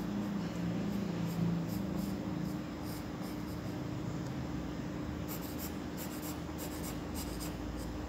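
Pencil scratching on drawing paper in short, quick shading strokes, with a rapid run of strokes in the second half.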